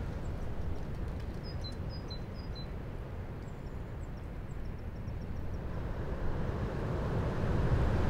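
Strong, gusty wind rushing through the bare branches of a leafless birch tree, easing a little in the middle and building again toward the end. A small bird gives a few short, high, falling chirps about one and a half to two and a half seconds in.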